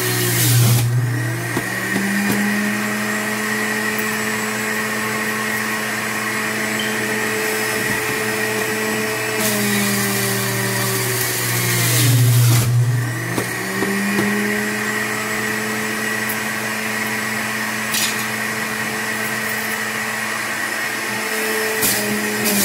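Power XL Self-Cleaning centrifugal juicer's motor running with a steady whirring hum. Twice, about half a second in and again about twelve seconds in, its pitch sags and the noise swells as produce is pressed down the chute with the pusher, loading the motor, and it then picks back up to speed.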